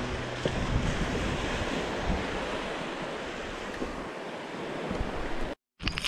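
Small waves washing onto a sandy beach, a steady surf hiss mixed with wind on the microphone, cutting off suddenly near the end.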